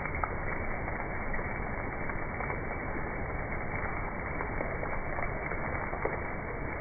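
Steady crackling hiss with scattered small pops and ticks: a background crackle ambience track, of the fire-crackle or rain kind.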